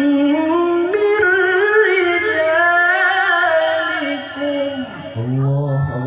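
Male qari reciting the Qur'an in the melodic tilawah style through a PA microphone, drawing out a long, wavering, ornamented note at the end of a verse phrase. About five seconds in, a second male reciter comes in on a lower, steady held note.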